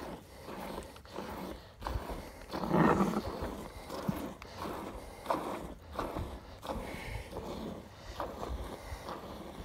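A camel being hand-milked: jets of milk squirting into a stainless steel bowl of frothy milk, one squirt after another. About three seconds in there is a louder, fuller low sound.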